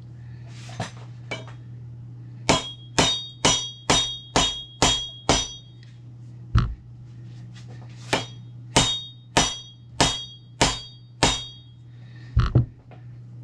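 Rubber mallet striking a steel hydraulic cylinder assembly to drive a part home: two runs of about six or seven blows, roughly two a second, each with a short metallic ring, a single blow between them and a quick double blow near the end.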